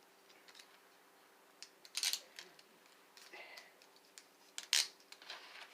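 Metal handcuffs and restraint chains being handled: scattered light clicks and clinks, with two louder metallic clanks, one about two seconds in and one near the end.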